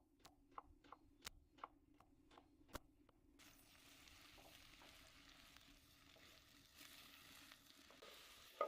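Beetroot frying in a pan on a wood-fired stove, heard faintly: scattered pops for the first three seconds, then a steady sizzle, with one sharper pop near the end.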